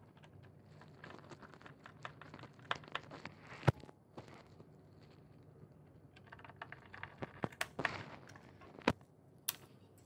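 Small plastic clicks and taps of hands and a screwdriver working on the plastic casing of an HP 200 Pro G4 all-in-one PC during reassembly. The sounds come in two irregular clusters, with a sharp knock a little under four seconds in and another near nine seconds.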